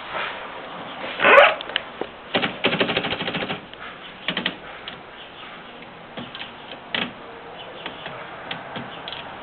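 Typewriter keys striking: a loud sweeping sound about a second in, then a fast run of clacks, about ten a second, followed by scattered single strokes.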